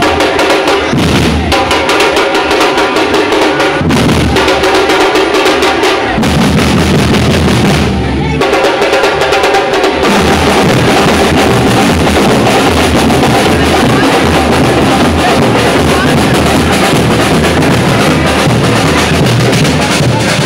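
Street band of marching drums, bass and snare drums, beating a loud, steady rhythm, with a pitched melody line over the drums in roughly the first half.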